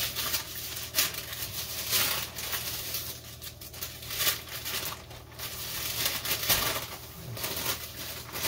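Parchment paper crinkling in repeated short bursts as it is handled.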